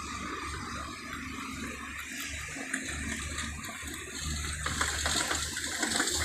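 Outdoor background noise: a steady rushing hiss, with wind buffeting the microphone in uneven low gusts. It grows a little louder in the second half.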